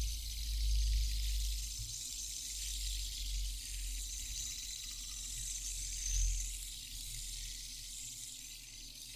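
Fidget spinner whirring as a cartoon sound effect: a steady high hiss over a low rumble that swells and fades a few times.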